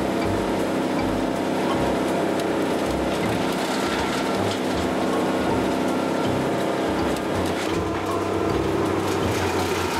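Wood chipper's engine running steadily under load while leafy branches are fed in and chewed up, with irregular low thumps and crackling as the wood is chipped.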